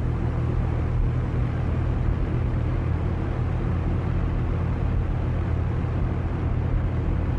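Electric fan running steadily at low speed: a constant low hum and rumble with a soft whoosh of air.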